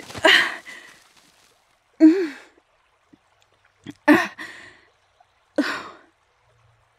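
A woman sighing and gasping in distress: four short breathy bursts, a second or two apart.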